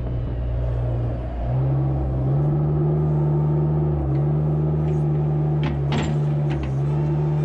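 Small farm loader's diesel engine running under load, its pitch stepping up as it is throttled up about two seconds in and then holding. A few short knocks near the end.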